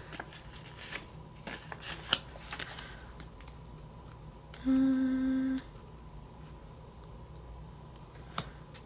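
Scissors snipping washi tape: a run of small sharp clicks over the first few seconds, and another single click near the end. In the middle a person hums one steady note for about a second, louder than the snipping.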